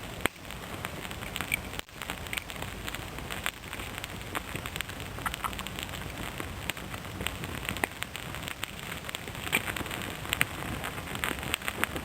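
A small fire of resin-rich kindling crackling with irregular ticks and pops, over the steady hiss of light rain.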